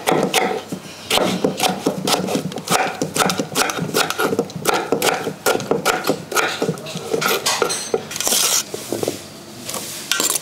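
A kitchen knife chopping ash gourd into small cubes on a wooden cutting board, a quick run of sharp knocks a few a second. About eight seconds in there is a short rustling scrape.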